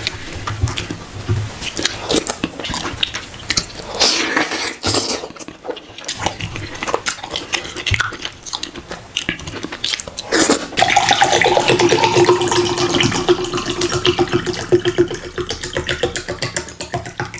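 Close, wet mouth sounds of fufu and soup being eaten by hand: chewing, smacking and soft squelching of the dough. From about ten seconds in a long, steady hummed 'mmm' runs for several seconds over the chewing.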